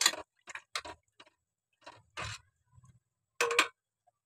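A metal ladle stirring water in a metal cooking pot, giving about eight short clinks and scrapes against the pot, with a longer scrape about three and a half seconds in.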